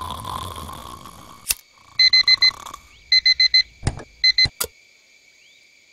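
Digital alarm clock beeping in quick groups of four short, shrill beeps, with a click before it starts. A hand slaps the clock's button a few times, with sharp clicks, and the beeping stops after a last short pair.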